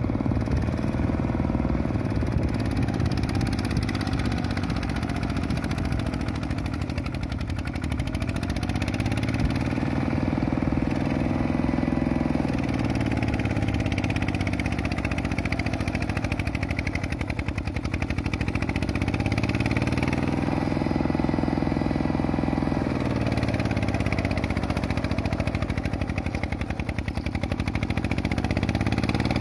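A power tiller's single-cylinder diesel engine running under load while the machine is worked through deep paddy mud. Its speed sags and picks up again several times.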